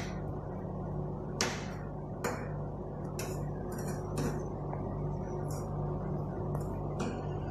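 Two metal spatulas chopping and tapping on a frozen steel ice-cream cold plate, a short sharp clack roughly every second, over a steady low hum.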